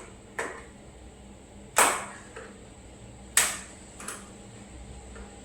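Four sharp clicks and knocks, the loudest two near the middle, from fridge parts being handled while a screwed-on cover is taken off.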